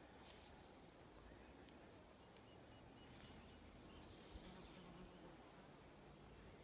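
Near silence: faint background hiss with a few soft ticks and a brief, faint high tone in the first second.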